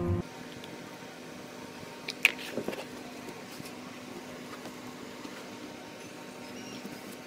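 A few sharp plastic clicks and taps about two seconds in, from a pink plastic cup, a spoon and a clear plastic lid being handled on a table, over a steady low room hum.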